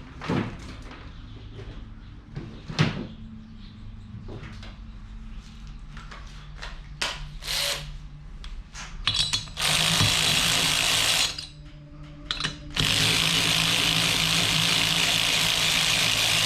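Tools and metal engine parts clicking and knocking, then a power tool running at a steady speed in two long runs: a short one of about two seconds, then a longer one of about four and a half seconds. Each run is mostly a loud, even, hissing rush.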